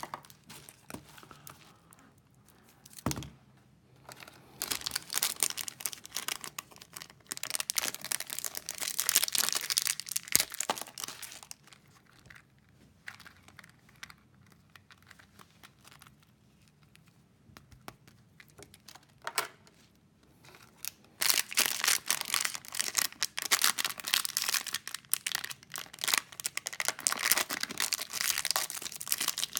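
Thin plastic wrappers crinkling and tearing as small toy bags are opened by hand, in two long bouts with a quieter stretch of small clicks and handling noises between.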